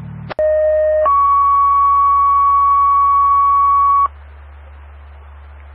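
Two-tone sequential dispatch page over a scanner radio: a click, a lower tone for under a second, then a higher steady tone held about three seconds, alerting an ambulance squad to a medical call. Low radio hiss follows the tones.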